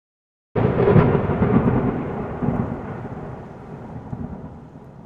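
A sound effect: a sudden loud crash about half a second in, followed by a long rumble that slowly dies away.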